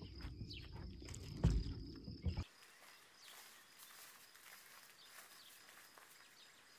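Low rumble and a few thumps on a handheld camera's microphone, cut off suddenly after about two and a half seconds, then a faint, quiet outdoor background with a few light ticks.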